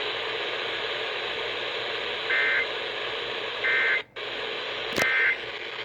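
Emergency Alert System end-of-message signal received over weather radio: three short bursts of warbling two-tone digital data, about a second apart, over steady radio hiss. This marks the end of the warning message. The audio drops out for a moment just before the third burst, with a click as the third burst starts.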